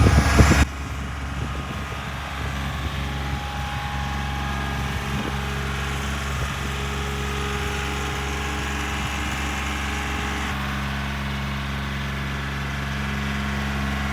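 An engine idling steadily, a constant low hum, after a brief louder burst of noise at the very start.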